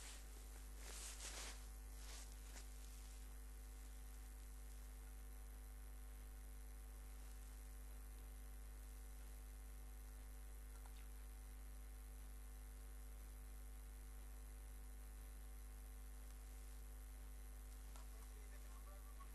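A quiet, steady low electrical hum with faint hiss, with a couple of brief soft rushes of noise in the first three seconds.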